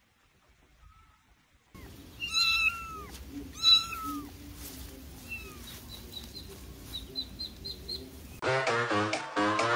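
After near silence, a kitten meows loudly twice, about a second and a half apart, followed by faint short high squeaks. Dance music with a steady beat comes in near the end.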